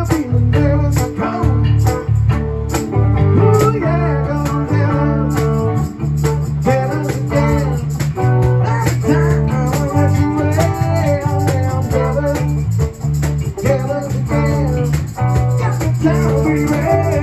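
Live band music: an electric bass guitar holds a low line under a steady percussion beat, with a harmonica and singing wavering above it.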